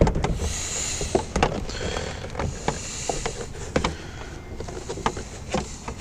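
Interior door panel of a 2001 Chevy Silverado rubbing, scraping and knocking against the door as it is worked onto its slot hangers, with many scattered sharp clicks.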